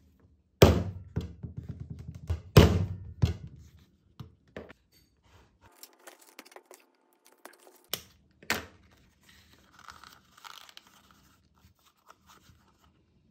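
Leather being worked by hand: two loud thunks, each followed by about a second of rasping, then lighter taps, two sharp clicks and faint rubbing of the leather.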